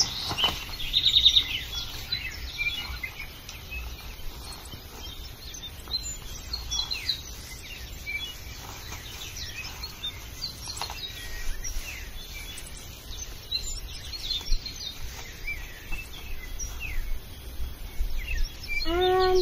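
Birds chirping and calling, with short high notes scattered throughout and a rapid high trill about a second in, over a steady low rumble.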